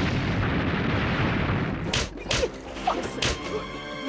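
Battle sound effects: a rumbling explosion for about two seconds, then about five sharp gunshots in quick succession, with faint music underneath.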